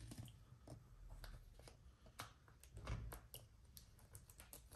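Faint, scattered ticks and scratches of a thin X-Acto craft knife trimming excess vinyl wrap film along the edge of a wheel rim.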